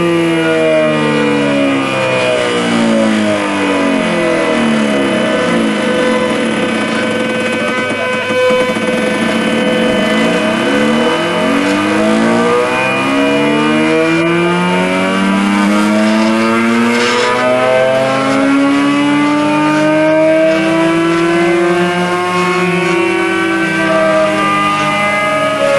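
Stepper motors of a mini CNC machine driving a pen around curved paths: several whining tones that glide up and down continuously, crossing one another, as the axes speed up and slow down along the arcs.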